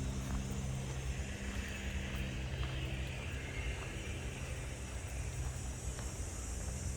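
Steady low rumble of distant road traffic, with a steady high hiss above it and a few faint ticks.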